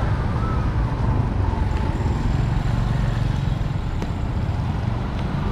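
Steady outdoor street noise with a low rumble of traffic.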